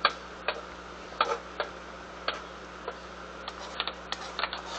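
Thick, creamy soup simmering in a pot, with bubbles popping through the thickened surface in irregular sharp clicks about once or twice a second.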